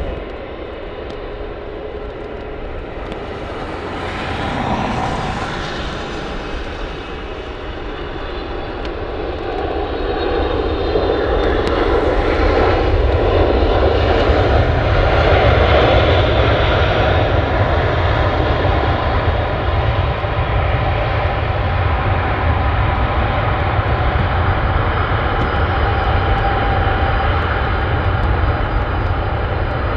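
Boeing 777F freighter's GE90 jet engines during a landing on a wet runway: a steady jet rush that swells from about ten seconds in as reverse thrust is applied after touchdown, then holds loud through the rollout.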